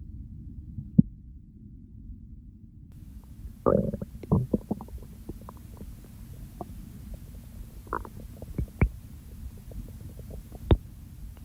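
A person's stomach and bowels growling and gurgling, close-miked. A steady low rumble runs throughout, with a bubbling cluster of gurgles about four seconds in and a few sharp single pops later on.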